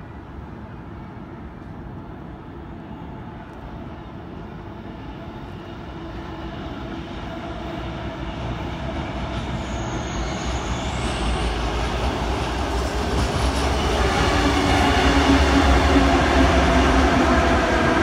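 Sydney Trains double-deck electric suburban train approaching along the viaduct, growing steadily louder from about six seconds in, then running close by, loud and steady, for the last few seconds.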